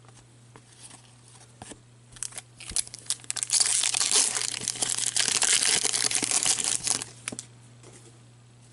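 A trading card pack wrapper being torn open and crinkled by hand: a few light rustles and clicks, then a dense crinkling that starts about three seconds in, lasts about four seconds and dies away.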